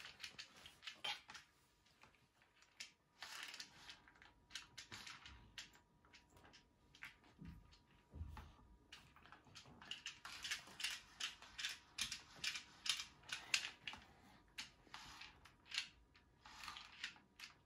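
Faint, irregular clicking and rustling of a small plastic toy being handled and fiddled with. The clicks come thicker in the second half, and there are a couple of dull low thumps about halfway through.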